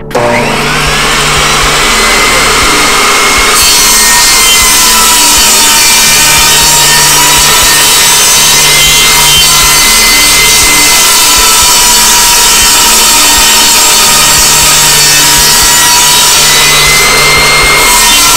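Ryobi benchtop table saw switched on, its motor spinning up with a rising whine over the first couple of seconds, then running steadily while a laminate flooring plank is cut.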